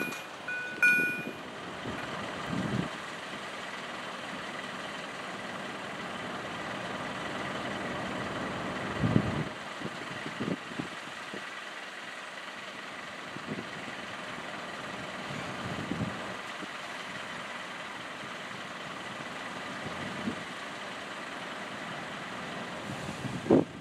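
A level-crossing warning bell rings and stops just over a second in. After that comes the steady running of two coupled PESA SA134 diesel railbuses approaching slowly, with a few low thumps.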